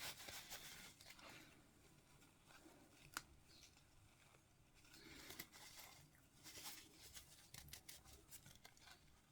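Faint rustling and small clicks of a plastic miniature and its parts being handled and pressed together, with one sharp click about three seconds in.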